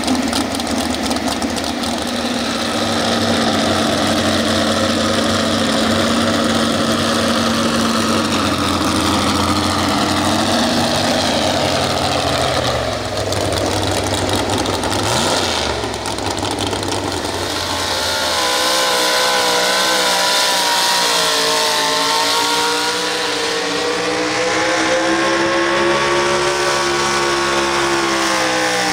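Engine of a naturally aspirated two-wheel-drive GMC pulling truck with open exhaust stacks, running steadily at first. From about eighteen seconds in it runs at high revs under load as the truck pulls the weight-transfer sled, its pitch wavering up and down.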